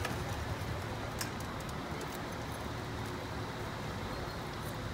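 Outdoor street ambience: a steady low rumble of vehicles and engines, with a single light click about a second in.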